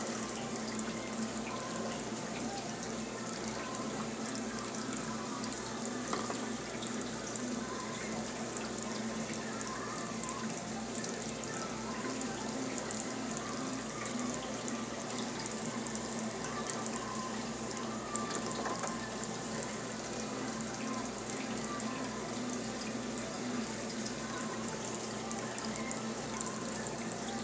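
Steady trickling and splashing of circulating water in a saltwater aquarium, with a faint low hum from its pump or filter.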